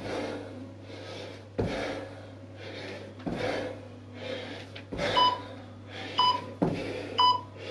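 Feet landing on a hard floor during split squat hops, a thud about every second and a half. In the second half an interval timer gives three short beeps about a second apart, counting down the last seconds of the set.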